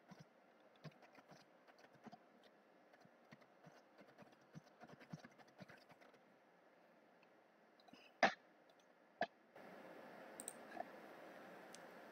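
Faint computer-keyboard typing, irregular keystrokes for the first several seconds, then two sharper, louder clicks about a second apart. Near the end a steady low hiss comes in.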